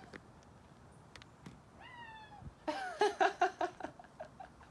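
An animal calling: one drawn-out call that falls slightly in pitch about two seconds in, then a quick run of short calls that slows toward the end.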